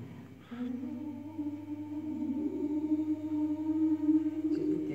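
A woman singing unaccompanied, holding one long final note of a folk song, which steps up slightly in pitch partway through.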